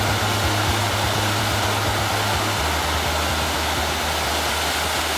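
Steady rush of a waterfall, with the low sustained bass notes of background music under it, dropping to a lower note about halfway through and fading near the end.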